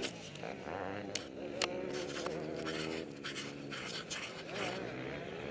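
Dirt bike engine idling with a steady buzzing note, with close knocks and scrapes from handling scattered over it.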